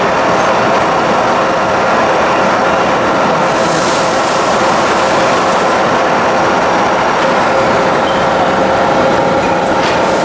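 Lagun FTV-4 knee mill running: a steady mechanical drone with a constant whine, with a brief hiss about four seconds in.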